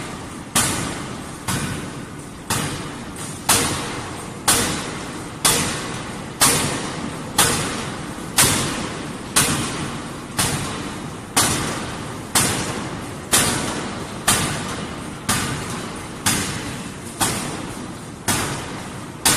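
Full hydraulic forging hammer with a DY4ZD power head striking a red-hot workpiece on the anvil. There is one heavy blow about every second, each ringing and dying away before the next.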